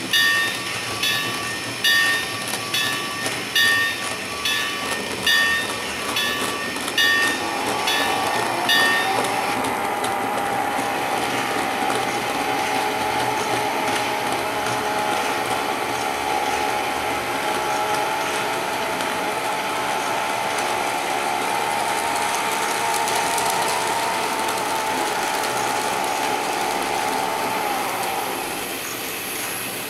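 N scale model train running: a locomotive bell rings about once a second for the first nine seconds, then a steady motor and gear whine carries on until it stops near the end, with light clicking of wheels over the track.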